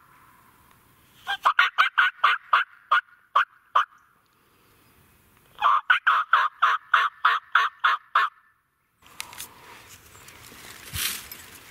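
Two series of turkey yelps, each about a dozen short, evenly spaced notes, the first run slowing toward its end. Rustling follows in the last few seconds.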